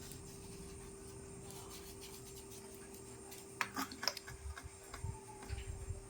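Handling noise while the air-cooler motor is being wired up: a short cluster of clicks and rubbing about halfway through, then a few low thuds, over a faint steady hum.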